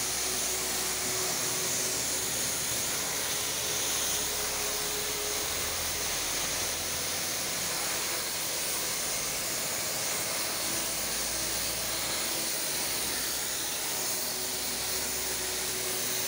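Pressure washer spraying a high-pressure jet of water onto a tiled floor: a steady hiss that holds without a break.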